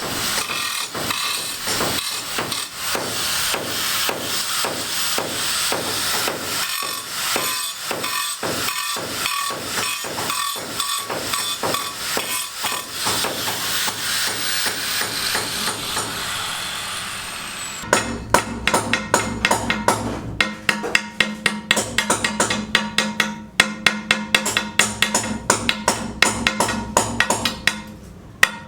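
Rapid sharp knocks, a few a second, with a falling whoosh near the end of them. About two-thirds of the way in, they give way suddenly to background music with a percussive beat.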